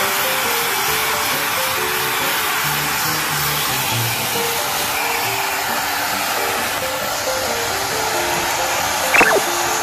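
A steady rushing air noise under light background music of short melodic notes, with a brief high squeak about nine seconds in.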